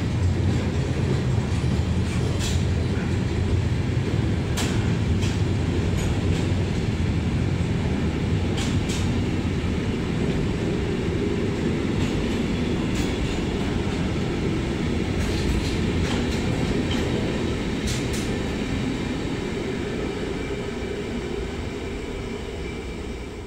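Intermodal freight train of pocket wagons carrying semi-trailers rolling past at speed: a steady rumble of wheels on rail with scattered sharp clicks, easing off over the last few seconds as the end of the train passes.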